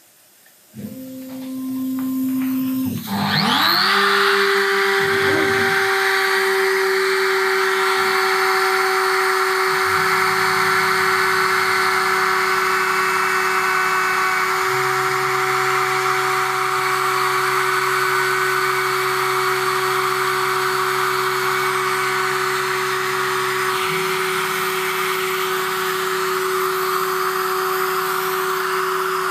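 CNC router spindle spinning up about three seconds in, then running with a steady high whine. Lower motor tones underneath change pitch several times as the machine's axes move through the chamfering program.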